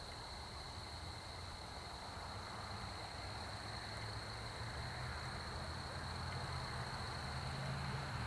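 Faint night-time outdoor ambience: a steady, high, even chorus of insects, with a low rumble that grows louder toward the end.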